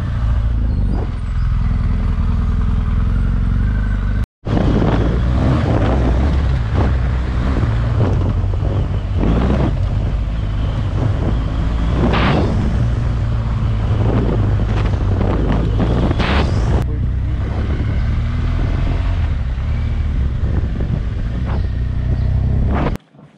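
Adventure-touring motorcycle engine running steadily under way on a dirt track, with passing bursts of rushing noise over it. The sound cuts out for an instant about four seconds in.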